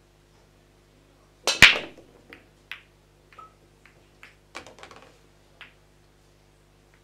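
A 9-ball break shot on a pool table: a loud crack as the cue ball smashes into the rack about one and a half seconds in, then a scatter of smaller clicks as the balls knock into each other and the cushions over the next few seconds.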